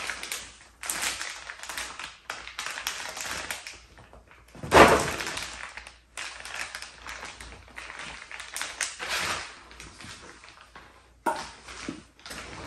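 Clear plastic wrapping crinkling and a cotton dust bag rustling as a small leather handbag is pulled out and handled, in stop-start stretches of rustling with short pauses. The loudest crinkle comes about five seconds in, and a sharp rustle starts just after eleven seconds.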